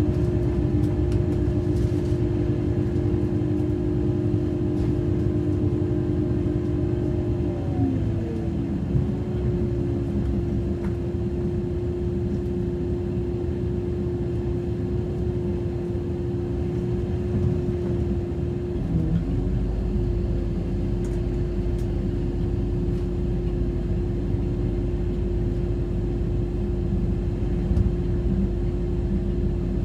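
Regional express train running, heard from inside the coach: a steady whine over the low rumble of the running gear. About eight seconds in, a set of higher tones slides down in pitch and fades. The whine dips briefly about two-thirds of the way through.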